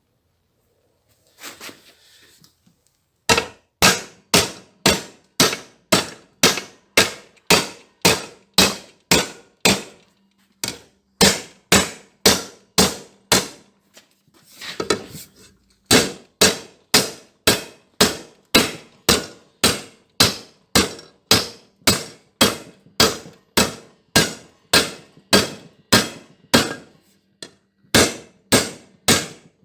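Hammer striking steel in steady blows, about two a second, each ringing briefly, with a short break partway through. This is typical of hammering a steel bracket into shape.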